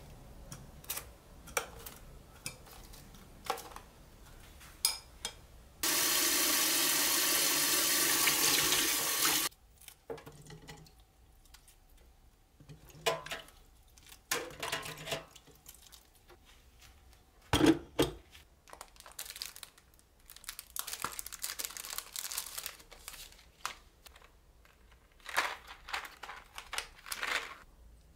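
A kitchen tap running into a bowl for about three and a half seconds to wash strawberries. Scattered clinks, knocks and plastic rustles follow as the strawberries are handled, with one sharp knock about two thirds of the way through.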